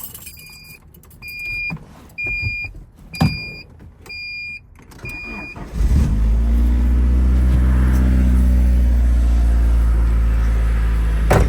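Honda CRX dashboard chime beeping six times, about once a second. Then, about six seconds in, the engine starts and runs steadily, its first start after an oil change and new spark plugs.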